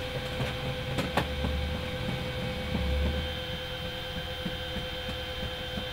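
Steady engine drone heard inside a military cargo aircraft's hold, with a constant high whine over a low rumble. A couple of sharp clicks come about a second in.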